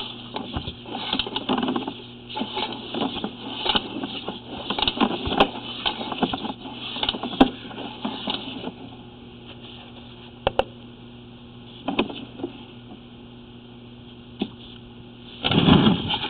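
Sewer inspection camera's push cable being fed down a cleanout into the sewer line: irregular clattering and rattling that thins to a few separate knocks, with a louder burst of clatter near the end, over a steady electrical hum from the camera unit.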